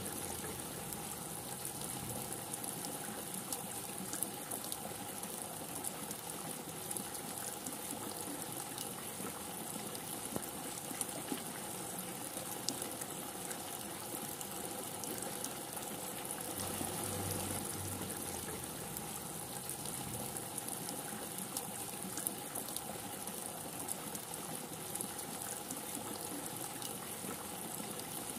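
Steady heavy rain: a dense even hiss of falling drops with scattered sharper drips and splashes. A brief low rumble comes about seventeen seconds in.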